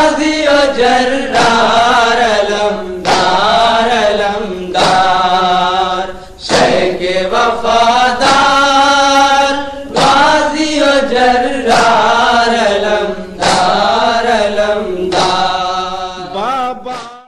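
A nauha, a Shia mourning lament, chanted in long sung phrases that rise and fall, with short breaks every couple of seconds. It cuts off abruptly at the very end.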